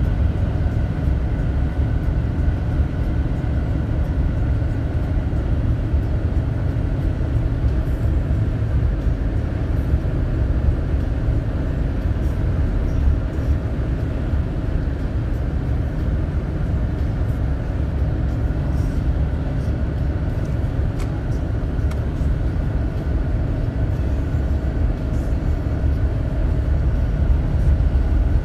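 Steady low rumble of a car being driven, engine and tyre noise, with a faint steady hum above it.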